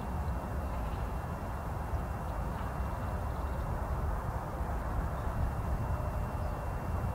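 Distant Boeing 787-9 jet engines running at taxi power: a steady rumble and hiss with a faint, unchanging high whine.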